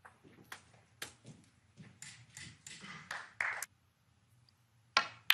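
Hushed snooker arena with faint scattered rustles and small knocks. Near the end come two sharp clicks about a third of a second apart: the cue tip striking the cue ball, then the cue ball striking another ball.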